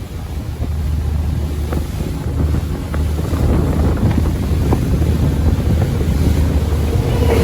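Boat running on the open sea, a steady low drone mixed with wind buffeting the microphone.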